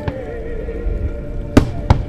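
Aerial firework shells bursting with sharp bangs: one just after the start, then two about a third of a second apart near the end. Music plays underneath.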